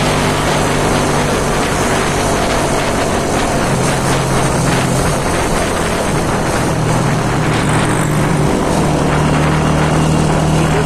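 Motorcycle engine running while being ridden, its low hum dropping in pitch about four seconds in and rising again a few seconds later with the throttle, over wind and road rush.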